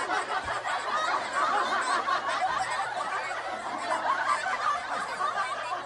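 Children giggling and snickering, continuous laughter with no clear words.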